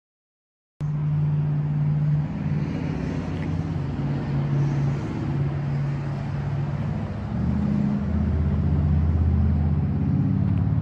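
An engine running steadily with a low hum. It cuts in abruptly just under a second in, and its pitch shifts lower about seven seconds in.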